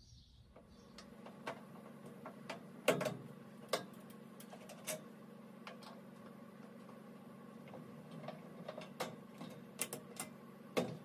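Scattered light clicks and taps of a hand-held screwdriver being handled at a furnace cabinet, the loudest about three seconds in and another near the end, over a faint steady hum.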